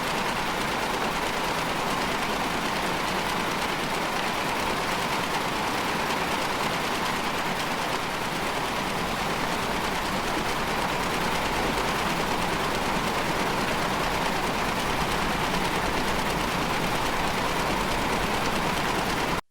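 A dense, steady, rattling mechanical-sounding noise drone from an experimental soundtrack, cutting off abruptly at the end.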